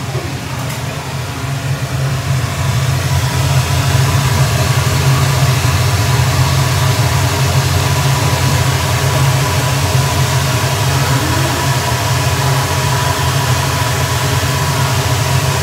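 Steady low mechanical hum under a rushing hiss, like a motor or fan running in the kitchen; it grows louder over the first few seconds, then holds steady.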